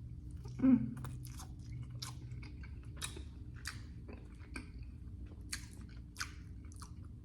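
Chewing and biting of boneless chicken wings dipped in ranch: irregular short mouth clicks and smacks, about one or two a second, with a brief low hum about a second in.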